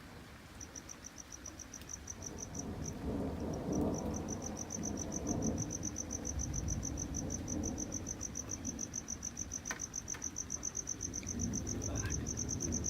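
A cricket chirping in a fast, even pulse, about six chirps a second, starting just after the start. Under it, a low rumble of distant thunder swells from about three seconds in and goes on.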